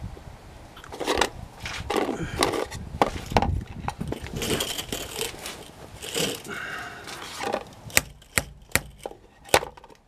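Hand tools being handled and shifted about: irregular rustling and knocking, then a quick run of sharp clicks and knocks in the last two seconds.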